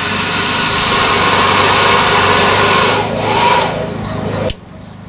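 Air blower feeding a coal forge's fire pot running steadily, then switched off about four and a half seconds in, leaving only a low hum.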